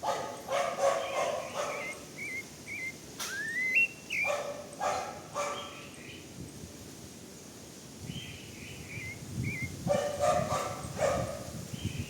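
A dog barking in three quick bursts of several barks each, with a bird singing short, high warbled phrases between the bursts.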